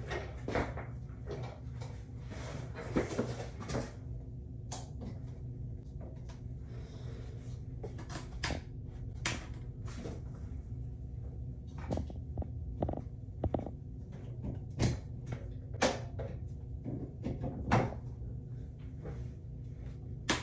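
Scattered sharp clicks and knocks of hard plastic being handled, about ten of them, after a few seconds of rustling, over a faint steady low hum.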